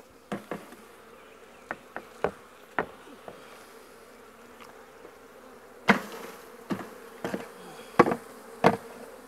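Honey bees buzzing in a steady hum around an opened nuc, stirred up. About a dozen sharp knocks from the plastic nuc lid being banged against the hive boxes to shake bees off, the loudest about six and eight seconds in.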